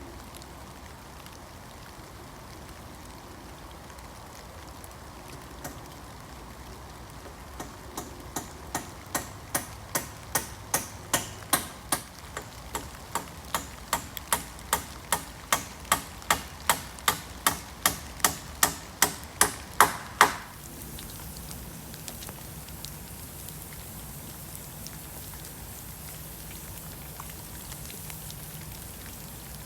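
Hammer driving a nail into a wooden rafter: a run of sharp strikes, two to three a second, getting louder, with a brief pause midway and a ringing last blow. Steady rain patters throughout, heavier after the hammering stops.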